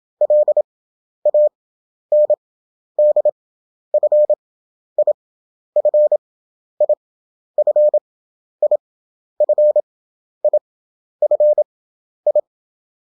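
Morse code practice tone: a single steady-pitched tone keyed into dits and dahs at 27 words per minute, with wide Farnsworth gaps between characters that bring the effective speed to 11 wpm, so a short group of elements sounds about once a second.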